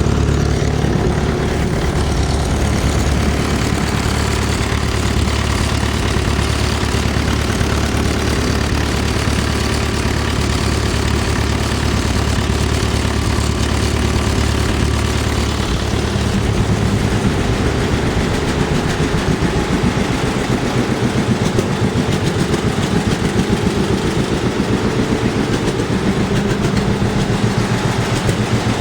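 Farmall MD's four-cylinder diesel engine idling steadily after being switched over from gasoline starting to diesel. About two-thirds of the way through, the deep rumble drops back and the separate firing pulses stand out more.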